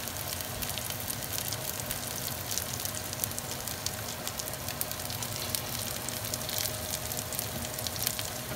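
Fish steaks shallow-frying in hot oil in a pan: a steady sizzle with fine crackling pops throughout.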